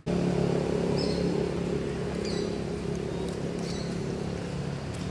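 Steady hum of a vehicle engine running, with short high chirps about three times.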